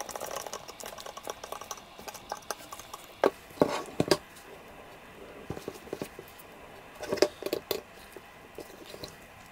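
Screwdriver tightening a bolt into the lid of a Jaguar XJS handbrake mechanism: light metal clicks and scrapes as the tip works in the bolt head, with a few sharper knocks as the steel housing is handled, around three to four seconds in and again about seven seconds in.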